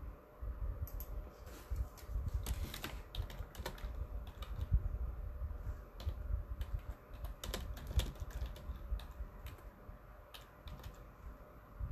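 Irregular typing on a keyboard: sharp key clicks, about two to three a second, with an uneven low rumble underneath.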